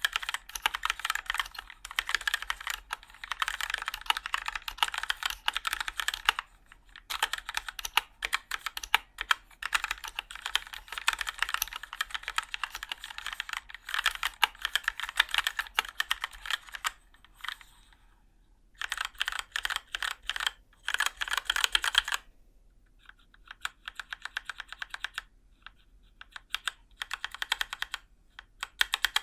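Fast typing on a Keychron K4 mechanical keyboard with Keychron Yellow linear switches and thin ABS keycaps: dense runs of key clacks broken by a few short pauses, the typing lighter and more broken up after about 22 seconds.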